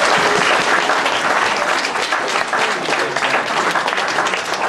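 An audience applauding: many hands clapping together at a steady level.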